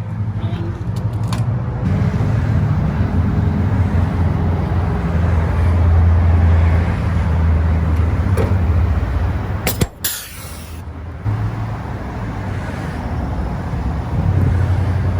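Steady low motor rumble. It drops away briefly with a couple of sharp clicks about ten seconds in, then resumes.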